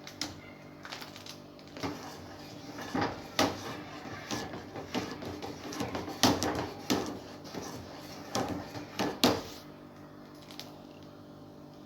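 A spoon stirring thickening harira soup in a cooking pot, scraping and knocking against the pot in a run of short strokes that stop about nine and a half seconds in, over a steady low hum.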